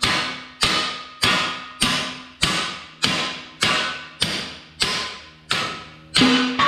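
Hammer blows on a metal bar driving out the top pin of a crusher jaw: about eleven steady strikes, roughly one every 0.6 s, each with a short metallic ring, the last one near the end louder and ringing longer.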